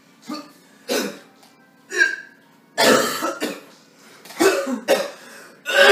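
A man coughing in a fit, as if something is caught in his throat: a run of hacking coughs, a few short ones and then longer, louder bouts from about halfway through.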